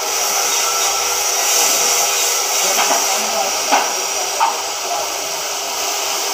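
CNC oxy-fuel cutting torch burning through thick steel plate with a steady hiss, over a low steady hum. Two short clacks come a little past the middle.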